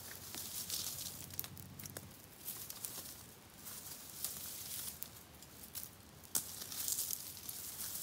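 Small stick-and-twig campfire burning, crackling with irregular sharp pops and a hiss that swells and fades.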